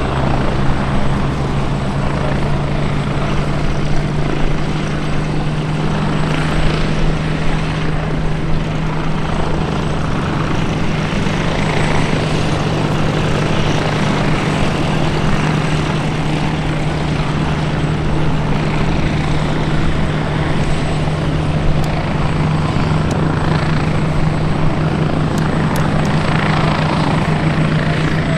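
Historic Westland helicopters flying a display overhead: engines and rotor blades make a steady drone over a low hum.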